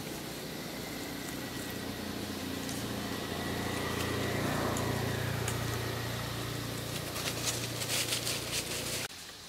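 A vehicle engine hums steadily, growing louder through the middle and easing again. A burst of crackling comes near the end, and the sound drops away suddenly just before the end.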